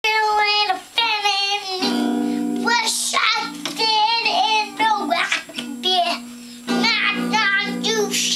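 A young child singing a wandering, made-up tune while strumming a small acoustic guitar; each strummed chord rings on steadily under the voice, a few times across the stretch, starting about two seconds in.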